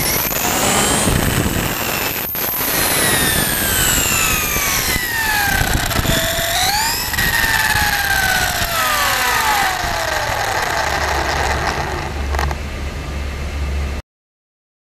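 Onboard sound of a 1/5-scale FG Audi RS5 4WD RC car's electric motor and gear drivetrain on 8S LiPo: a high whine that falls as the car slows, climbs sharply again about seven seconds in, then winds down, over tyre and wind rush. The sound cuts off abruptly near the end.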